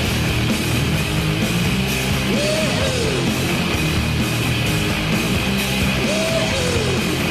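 Loud rock goal song playing, with a swooping rise-and-fall figure that comes back about every three and a half seconds.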